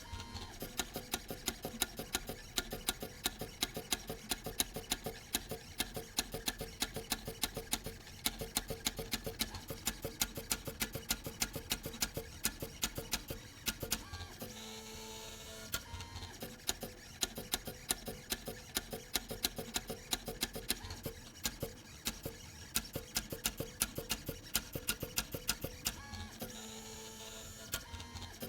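Robotic pen plotter drawing with a fineliner: its motors run with rapid, uneven clicking, easing twice into a steadier motor tone, about half way through and near the end.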